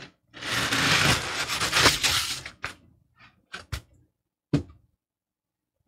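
Foam packing insert being pulled up and out of a cardboard box, rubbing and scraping against the box walls for about two seconds. A few short knocks and rustles follow as it is set down.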